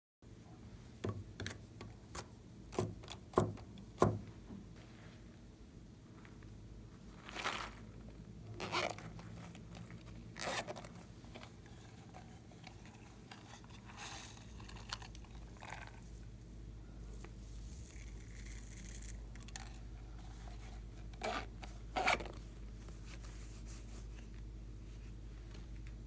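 Hands handling a plastic piping bag and packaging over a glass dish of slime: a run of sharp clicks and taps in the first few seconds, then scattered crinkles and scrapes.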